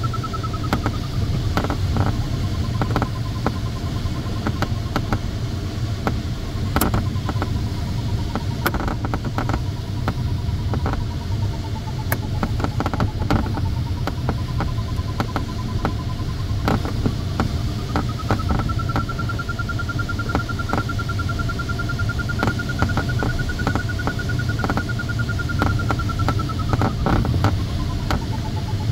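Airflow rushing steadily past a glider's cockpit. Over it the audio variometer beeps, its pitch dipping a little and then rising and holding higher in the second half as the climb in the cloud's lift strengthens. The first raindrops tick sharply against the canopy now and then.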